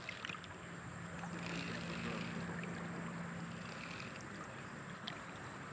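Creek water running steadily, with a low steady hum that stops about two-thirds of the way through.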